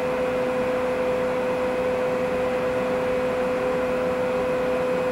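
DC servo motor on a CNC-converted knee mill's Z axis running at a slow jog, driving the quill down through its belt: a steady hum with one clear tone.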